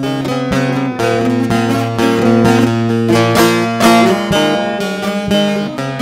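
Long-necked bağlama (saz) played with a plectrum: a quick-picked melody over open strings ringing steadily underneath, an instrumental passage with no singing.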